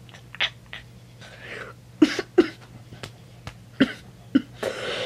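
A young woman laughing behind her hand in short, breathy, stifled bursts with a few brief voiced sounds, fuller near the end.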